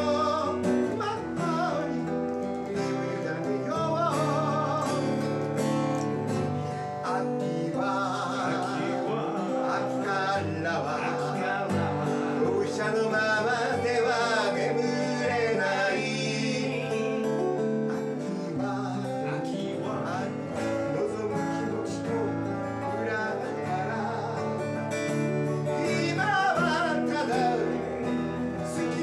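Two acoustic guitars strummed and picked together while men sing a song, the voices held out in long notes with vibrato.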